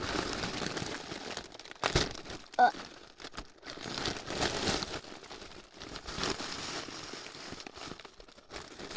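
Plastic packaging crinkling and rustling as a parcel is torn open and handled, with a sharp snap about two seconds in.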